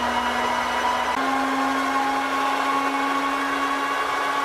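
Meuser M1 L centre lathe running under power: a steady motor-and-gear whine with a clear pitch that steps up slightly about a second in.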